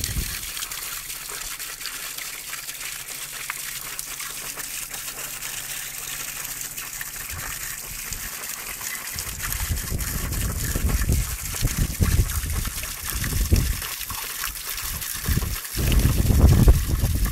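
A thin stream of spring water pouring from a pipe and splattering onto rocks and leaves, a steady hiss. From about halfway through, low rumbling surges on the microphone come and go over it and are louder than the water.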